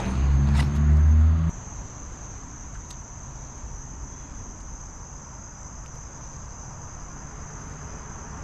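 Steady high-pitched insect chorus. A loud low rumble with a couple of knocks sits under it at first and cuts off abruptly about a second and a half in.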